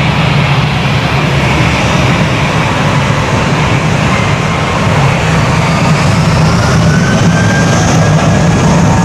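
Airbus A320-232's IAE V2500 turbofan engines running loud over a deep rumble. A whine rises in pitch over the second half as the engines spool up for takeoff.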